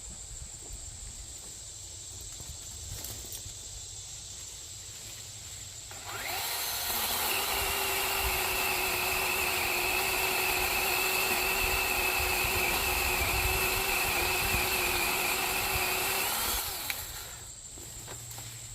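Chainsaw cutting firewood: it speeds up about six seconds in, runs at a steady pitch for about ten seconds, then stops. Its chain is getting dull, by the owner's account.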